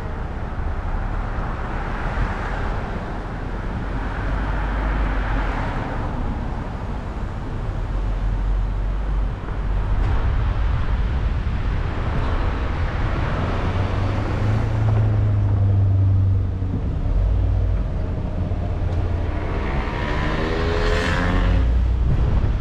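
A car driving at town speed: a steady low rumble of engine and road noise, with several swells as traffic passes. Near the end comes a rising engine note, like a vehicle accelerating.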